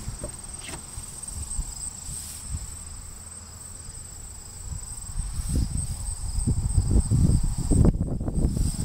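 Insects in the grass making a steady, high-pitched trill, over low, uneven rumbling from wind or handling on the microphone that grows louder in the second half.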